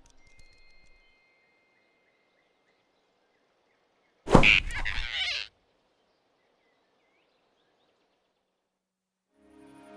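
A single sudden swish with a thump: a cartoon sound effect of a quick snatch, loud and about a second long, starting about four seconds in. Before it there are only faint thin high tones.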